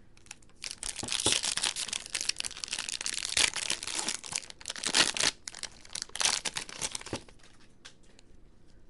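Foil wrapper of a 2015 Bowman Chrome trading card pack being torn open and crinkled by hand, a dense crackling starting a little under a second in and stopping about seven seconds in. A few light clicks follow as the cards are taken out.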